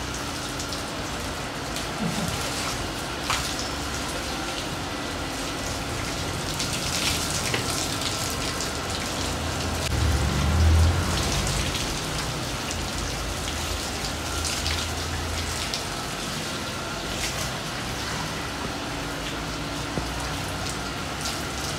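Garden hose jet spraying and spattering on walls, a gate and leaves: a steady rain-like hiss of falling drops. A brief low rumble about halfway through.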